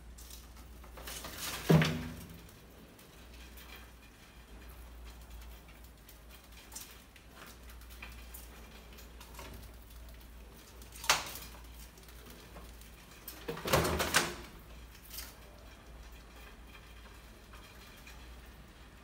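Hinged plywood trap lid over a glass tank knocking as it tips and swings back while rats step onto it: a knock about two seconds in, a sharp one about eleven seconds in, and a rattling clatter around fourteen seconds.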